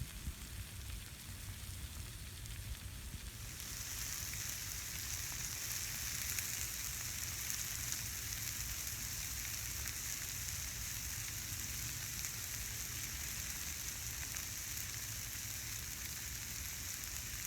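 Food sizzling on a hot flat-top griddle, a steady hiss that gets louder and brighter about three and a half seconds in, then holds.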